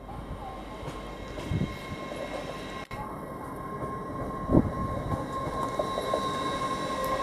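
LNER Azuma (Hitachi Class 800/801) train moving, a steady whine from its traction equipment over a low rumble, gradually getting louder, with a couple of low thuds.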